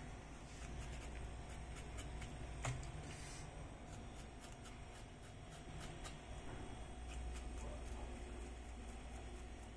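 Knife blade scraping the skin of a piece of smoked pork to clean off the smoky surface: faint, scattered scratching with small clicks, and one sharper click about two and a half seconds in.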